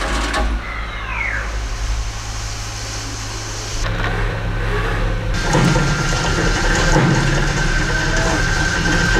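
Horizontal CNC mill drilling steel with a 2.5-inch modular insert drill: the spindle runs under heavy load over a steady hum, with the hiss and splash of high-pressure through-tool coolant spraying inside the enclosure. The sound shifts abruptly a few times, and a steady high whine comes in about halfway through.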